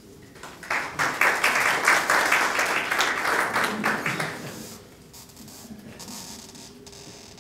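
A small audience applauding, starting just under a second in and dying away after about four seconds, leaving quiet room noise.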